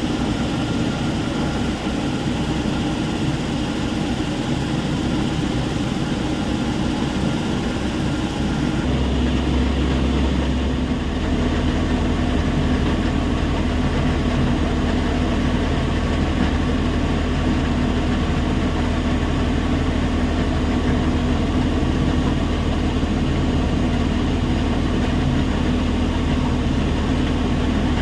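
Heavy diesel machinery running steadily with a low rumble. About nine seconds in it grows a little louder and a steady hum joins.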